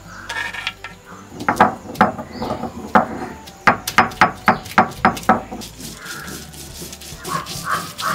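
Stone roller knocking and grinding on a flat Sri Lankan grinding stone (miris gala), crushing garlic, peppercorns, ginger and goraka. A rapid series of sharp knocks, about three or four a second, runs through the middle, with a few more near the end.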